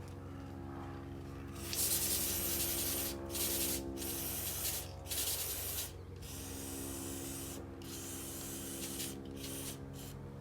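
Aerosol spray can hissing in a series of bursts, about seven sprays of roughly half a second to a second and a half each, with short breaks between them.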